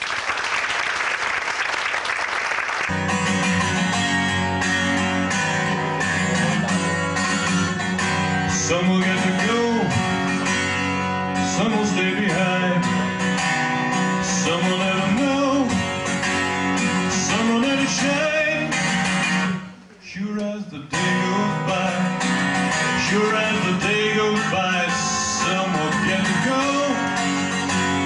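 Live acoustic guitar strummed while a man sings. It starts after about three seconds of clapping. The music briefly drops away about twenty seconds in, then carries on.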